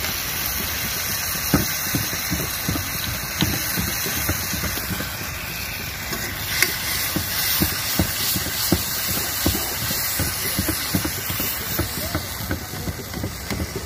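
A pot of hilsa curry cooking over the stove: a steady hiss with many irregular soft pops and crackles.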